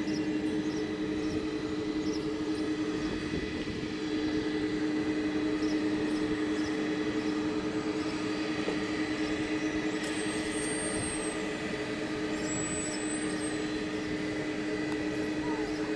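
Jet airliner's engines running steadily at low power, a constant hum and whine. Two short high whistles come in about two-thirds of the way through.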